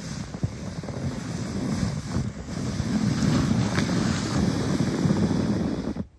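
Plastic saucer sled sliding down a packed snow run: a steady scraping rumble that grows louder as the sled comes closer, then cuts off suddenly near the end.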